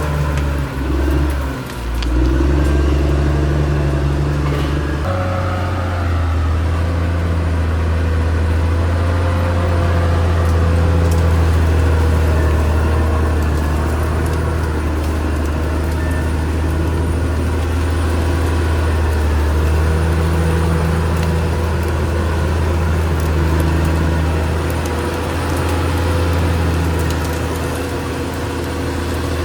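Caterpillar D6R XL bulldozer's diesel engine running steadily with a low hum. It dips briefly a second or two in and changes note about five seconds in.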